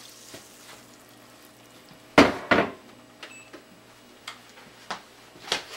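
Kitchenware clattering at the stove: a sharp knock about two seconds in with a second right after it, then a few light clinks.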